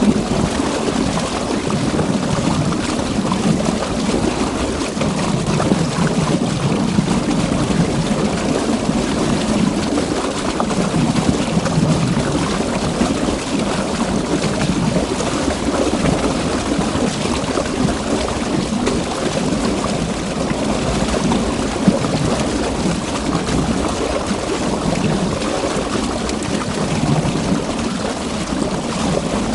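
River water rushing and churning, with a steady full sound that swells and eases slightly, heaviest in the low-middle range.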